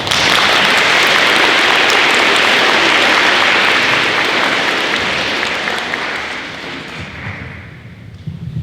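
Audience applauding, starting all at once and dying away over the last few seconds.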